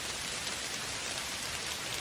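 Steady rain falling, a dense even hiss with faint scattered drop patter.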